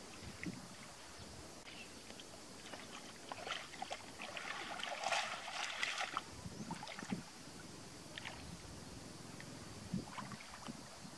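Shallow muddy water splashing and sloshing as a person wades and gropes by hand for fish, in scattered small splashes with a louder stretch of splashing about halfway through.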